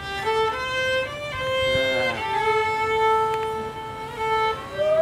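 Violin music: a slow melody of long held notes, one of them held for about two seconds.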